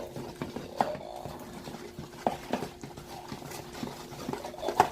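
Stirring utensils knocking and scraping against bowls at irregular moments while sticky slime is worked and gathered up from the bottom. The clearest knocks come about a second in, twice around two and a half seconds in, and once near the end, over a faint steady hum.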